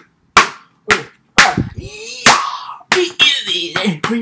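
A rapid series of sharp slaps or hits, about eight in four seconds, with short vocal sounds in between.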